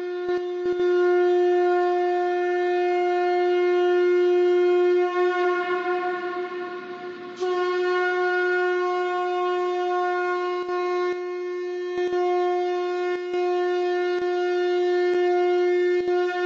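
Conch shell trumpet blown in two long, steady blasts on one held note. The first blast fades out around five to seven seconds in, and the second starts abruptly about seven and a half seconds in and holds on.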